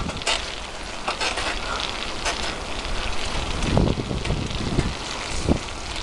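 Bicycle rolling along an asphalt trail: a steady rushing of tyre and wind noise, with wind buffeting the microphone in low gusts and several sharp clicks scattered through.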